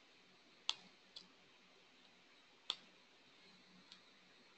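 A few sharp single clicks of a computer mouse, two plain and two faint, spread over near silence.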